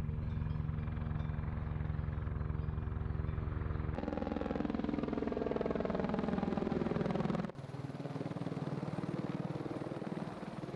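Helicopter in flight, its rotor beating steadily. The sound shifts abruptly twice, about four and seven and a half seconds in.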